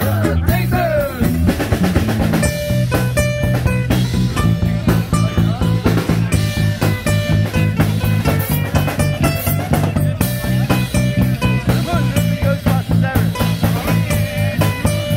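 Live band playing with electric bass, acoustic guitar and drum kit, a steady beat of drum hits under the bass line.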